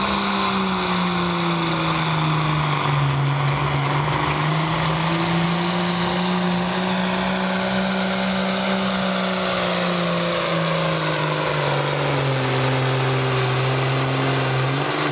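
Ford pulling tractor's diesel engine running hard under full load as it drags a weight-transfer sled, black smoke pouring from its stack. The engine note holds steady with slight wavering, then drops lower about three-quarters of the way through as the revs fall off under the load.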